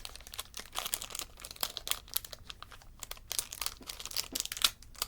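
Foil wrapper of a Pokémon card booster pack crinkling irregularly as it is handled and pulled open by hand.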